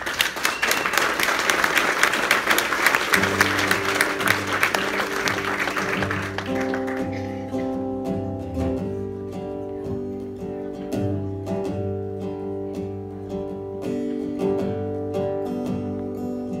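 Audience applause that fades out over the first seven seconds or so, while electric and acoustic guitars begin the song's instrumental intro about three seconds in. The guitars go on alone with held, ringing notes that change every second or two.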